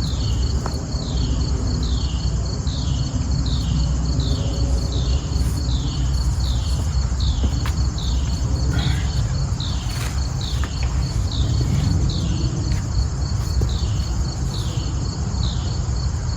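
Crickets or other insects chirping steadily: a fast high trill and a high chirp that drops in pitch, repeating about once a second. A steady low rumble runs underneath.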